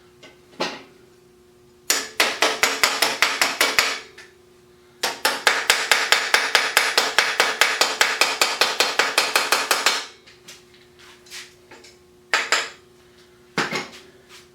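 Rapid metal-on-metal strikes of a hand tool on the hand truck's steel axle and wheel hardware, about eight or nine sharp hits a second in two runs, the second lasting about five seconds, with a few single knocks around them.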